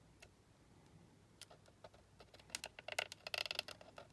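Light clicks and taps of a plastic circle template and marker being handled over a small toy tyre, a few at first, then a quick cluster with a brief scratchy rub about three seconds in.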